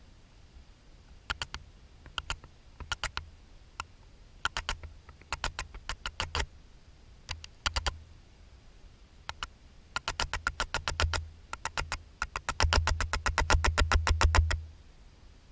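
Fishing reel clicking in short bursts, the clicks coming faster and louder toward the end, then stopping suddenly.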